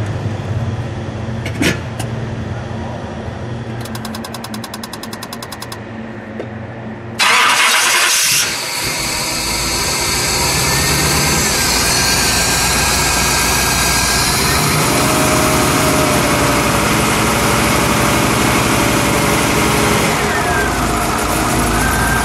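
A 383 cubic-inch stroker small-block V8 with fuel injection, in a 1958 Chevrolet Corvette, starts about seven seconds in with a short loud burst as it cranks and catches. It then settles into a steady idle.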